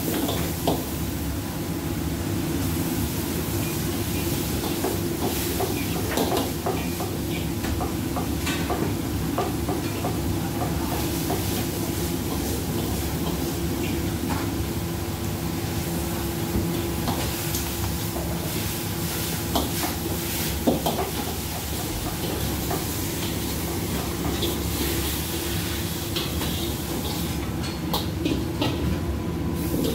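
Gas wok burner running with a steady rushing noise under a stir-fry sizzling in the wok. A metal ladle clanks and scrapes against the wok now and then. Near the end the wok is tipped and the food scraped out onto a plate.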